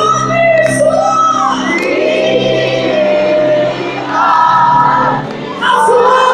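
Live gospel singing: a voice sings long held notes that slide between pitches over steady, sustained low chords, with crowd shouts and whoops.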